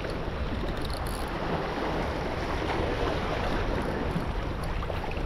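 Steady wind buffeting the microphone over sea water washing against a small boat's hull.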